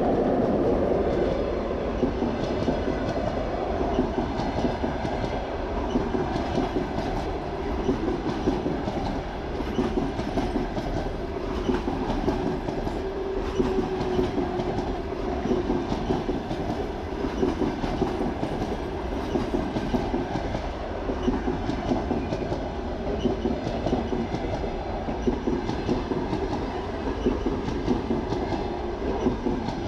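Express passenger train hauled by an EP1M electric locomotive passing close by at speed. The coaches' wheels clatter over the rail joints in a steady run of clicks.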